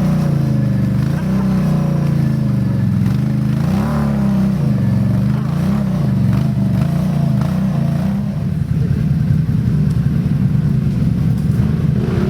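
ATV (quad) engine revving up and down over and over, its pitch rising and falling every second or so. From about eight seconds in it changes to a rougher, choppier, steadier run.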